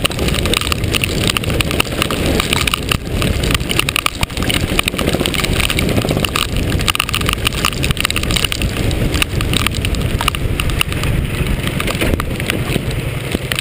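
Go-kart engine running on a wet track, mixed with steady wind and water noise on the onboard camera.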